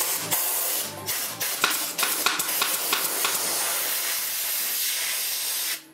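A loud, steady hiss, like gas or steam spraying, with a few short clicks in it, cutting off abruptly near the end.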